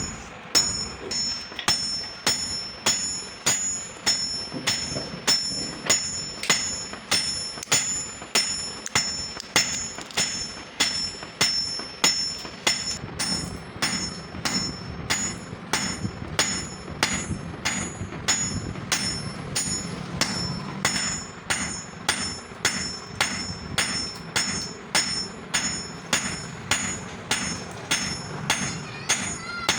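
Hammer blows on steel against an anvil, struck at a steady pace of about two a second, each blow with a bright metallic ring. A low hum joins in about halfway through.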